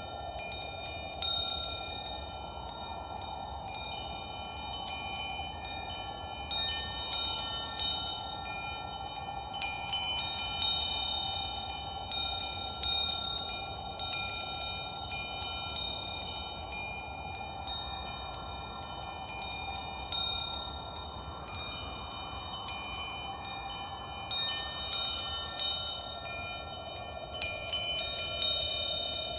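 Wind chimes ringing, with their metal tubes struck at irregular moments and left to ring out, the loudest strikes about ten seconds in and near the end. A steady soft rushing noise lies underneath.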